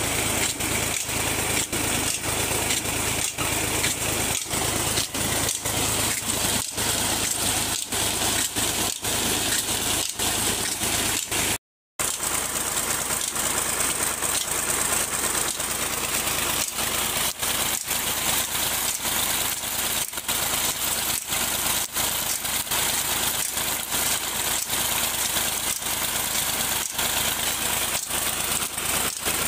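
Fiat 480 tractor's three-cylinder diesel engine running steadily under load, driving two tubewell pumps through long flat belts and a shaft. The sound drops out for a split second about twelve seconds in.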